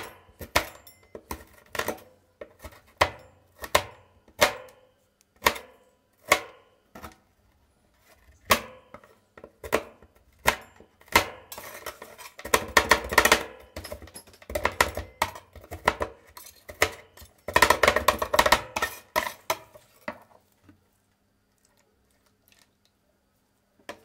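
Two metal spatulas chopping Ülker Dido chocolate wafer bars on a steel cold plate. Single sharp clacks come about twice a second for the first ten seconds, then fast bursts of rapid chopping. The chopping stops a few seconds before the end.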